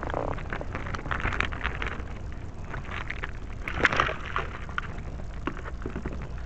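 Clear plastic zip-top bag crinkling and rustling as it is handled and hooked onto a hanging scale, with the sharpest crackle just before four seconds in. A steady low rumble runs underneath.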